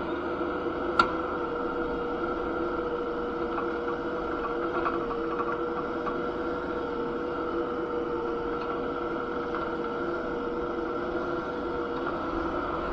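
Kubota SCL1000 stand-on compact skid steer's engine running at a steady speed, a constant hum, with one sharp click about a second in.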